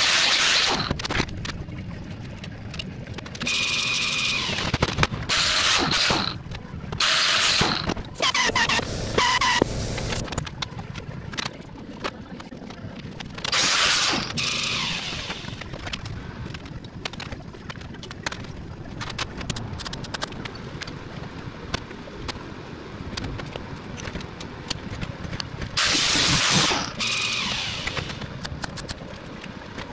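Angle grinder cutting thin sheet metal in several short bursts of a second or two each, with quieter scrapes and clanks of the sheet metal being handled in between.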